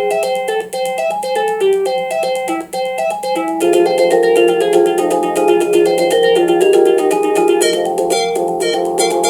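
FM-synthesised music from a Commodore 64 SFX Sound Expander, playing an 80s pop medley with General MIDI instrument sounds: a stepping melody over chords with a quick, even ticking beat.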